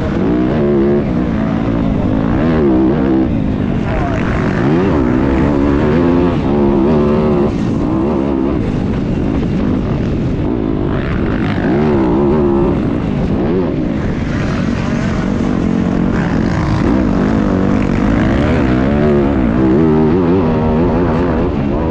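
Several motocross bikes racing, their engines revving up and down over and over as the riders work the throttle and shift through the gears, several engines overlapping at once.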